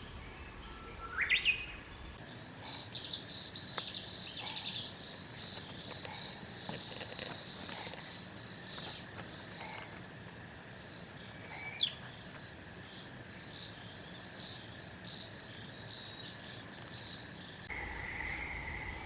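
Green tree frogs calling in rapid, pulsed chattering trills that keep going through most of the stretch, loudest at the start. A couple of sharp rising chirps cut in, one near the start and one about midway.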